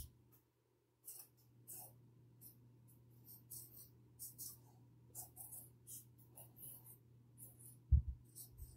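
Bic Mark-It fine-point permanent marker scratching on burlap stickers, in short irregular strokes as letters are written. A low thump about eight seconds in.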